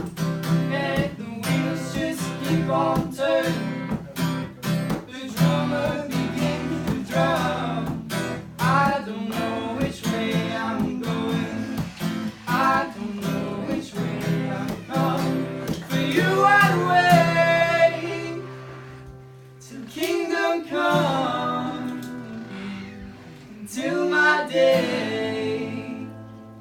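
Acoustic guitar strummed in a steady rhythm, with a voice singing over it. About two-thirds of the way in the strumming gives way to sparser, softer chords.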